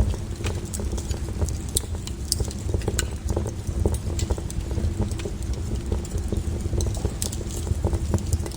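Wood fire burning: a steady low rumble of flames with irregular sharp crackles and pops of the burning wood.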